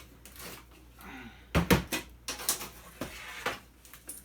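Hand-stripping scrap electronics: a series of sharp clicks and knocks as parts are pried and snapped off, the loudest two close together about a second and a half in, then several lighter ones, with faint rustling of handling.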